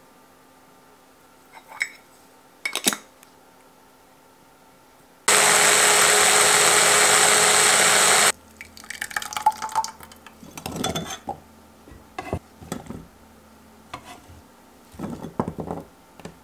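ProMix hand blender with a chopper bowl running steadily for about three seconds, blending blueberries, olive oil and balsamic vinegar into a dressing. Before it come two light clicks, and after it a run of light knocks and clatter as chopped pieces go into a glass jar.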